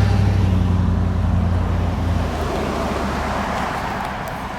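A motor vehicle on the road: a low, steady engine hum with tyre noise, fading as it moves away.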